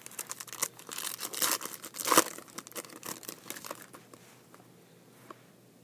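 Foil wrapper of a Bowman Chrome football card pack crinkling and tearing open, dense and crackly for the first two and a half seconds with the loudest rip just after two seconds, then only a few faint crinkles and clicks.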